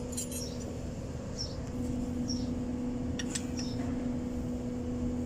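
A few light metallic clicks of a wrench being set on a bolt of a truck transmission's shift housing, about three seconds in, over a steady low hum from an unseen machine.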